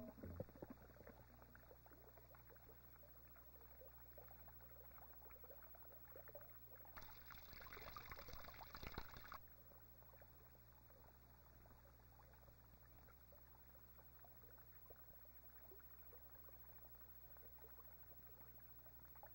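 Near silence: a steady low hum and faint crackle from an old soundtrack, with a brief hiss of noise lasting about two seconds, starting about seven seconds in and cutting off suddenly.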